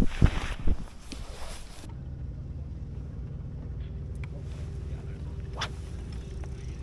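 Wind buffeting the microphone for about two seconds. After that comes a steady low hum with a faint whine, from the bow-mounted electric trolling motor holding the bass boat in place. There is one sharp click about five and a half seconds in.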